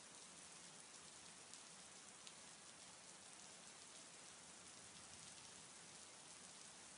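Faint, steady rain falling, with a few single drops ticking out a little louder now and then.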